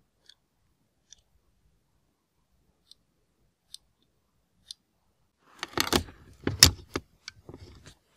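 A small cigarette-lighter car charger's metal tip and spring contacts give faint single clicks as fingers press them. Near the end comes a louder, irregular clatter and scrape of metal and plastic as the charger is pushed into a car's lighter socket.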